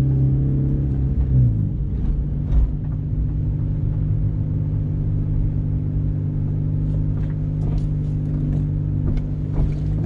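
A 1998 Honda Civic hatchback's four-cylinder engine running steadily, heard from inside the cabin while the car rolls slowly. Its pitch drops slightly about a second and a half in, and a few faint clicks come through later on.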